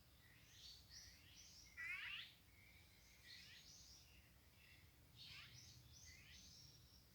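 Faint birdsong: several small birds chirping and calling over one another, with one louder, quick downward-sweeping call about two seconds in.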